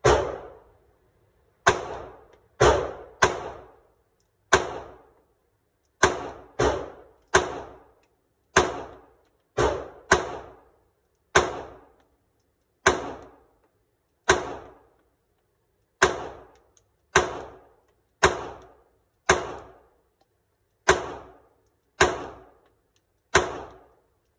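About twenty single 9mm pistol shots from a Springfield Armory XD9 Subcompact, fired at an uneven pace of roughly half a second to a second and a half apart. Each shot is sharp and loud and trails off in the echo of the indoor range.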